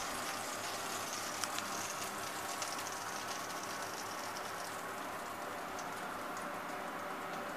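Roast chicken and its juices sizzling and crackling steadily in a hot baking tray as lemon juice and oil are brushed over it. A few light clicks come in the first three seconds.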